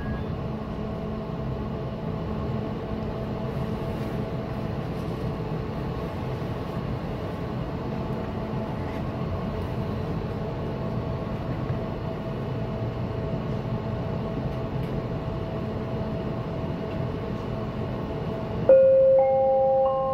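SkyTrain car standing at a station, its onboard equipment giving a steady hum. Near the end, a louder rising three-note chime sounds, the warning that the doors are about to close.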